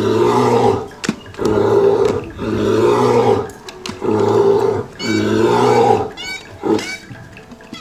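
Recorded animal roars played from the loudspeaker of an animal-sound picture board: a series of about six roaring calls, each about a second long and coming about once a second, with high chirping calls around five to six seconds in.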